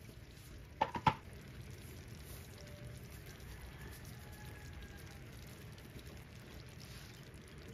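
Creamy vegetable sauce simmering in a pan, a soft steady bubbling patter. About a second in, three sharp clicks.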